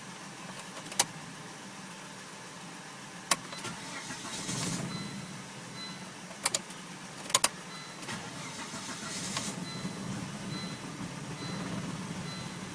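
2000 Volvo V70R failing to start: several sharp clicks and two short spells of whirring that do not catch into running, over a low steady hum. A faint high beep repeats through the second half.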